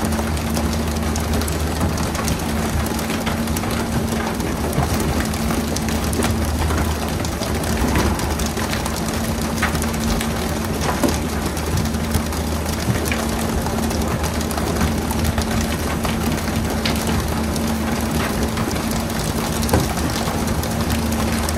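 A fishing boat's engine runs steadily with a low hum under a constant hiss of splashing water. Scattered sharp knocks come as pole-caught tuna are swung aboard and land on the deck.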